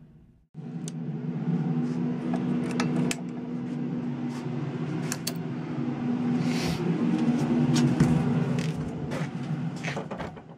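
A steady low mechanical hum with several held tones, dotted with sharp clicks and knocks of things being handled, after the last of the background music fades out in the first half second.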